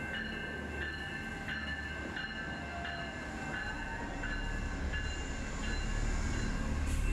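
Amtrak GE Genesis diesel locomotives and passenger cars rolling slowly past, a low diesel and wheel rumble that grows louder toward the end. Over it a grade-crossing bell rings, about three strokes every two seconds.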